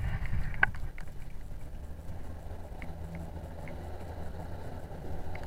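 Outboard motor of a small inflatable boat running steadily at low speed, a low even hum. A sharp knock comes about half a second in.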